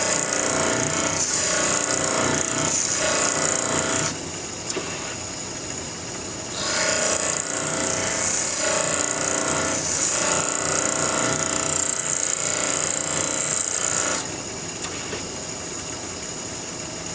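Bench grinder wheel grinding a mild steel blank, a harsh steady grinding hiss. The steel is lifted off about four seconds in and pressed back on about two and a half seconds later, then lifted off again near the end, leaving only the quieter sound of the wheel spinning.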